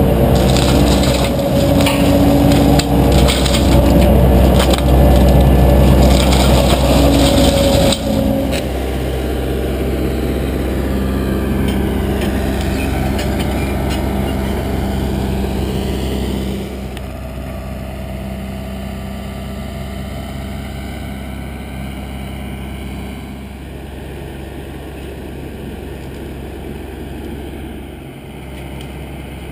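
Excavator-mounted Advance Forestry RDM 34 hydraulic mulcher head grinding brush, close and loud with a steady machine tone and rough shredding for the first several seconds. After about eight seconds the same excavator and mulcher run at a distance, quieter, and drop again in level about halfway through.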